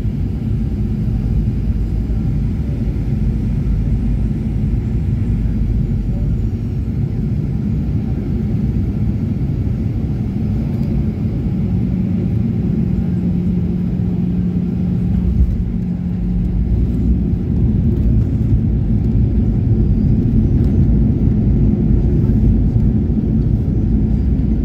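Airliner cabin noise during landing: a steady low rumble of engines and airflow, turning louder in the last third, with knocks and jolts as the wheels run along the runway.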